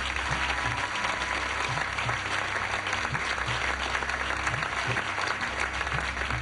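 Studio audience applauding a correct answer, a steady dense clapping throughout, with a faint regular low thump at about two a second underneath.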